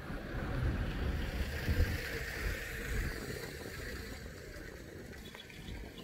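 Wind rumbling unevenly on the microphone over a steady outdoor hiss that is strongest in the first half.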